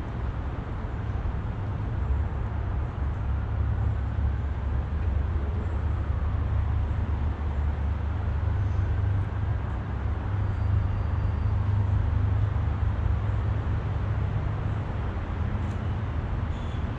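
Low rumble of passing road traffic, swelling through the middle and easing again near the end.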